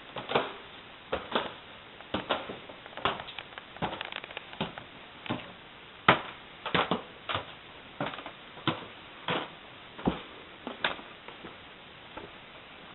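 Footsteps of a person walking indoors, an even run of steps about one every three quarters of a second.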